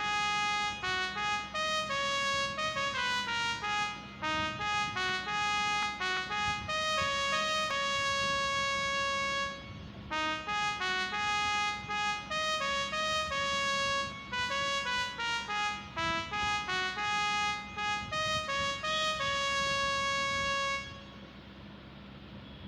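A phone ringtone tune in a brassy, trumpet-like tone: the same melodic phrase played twice, each lasting about ten seconds, then it stops near the end.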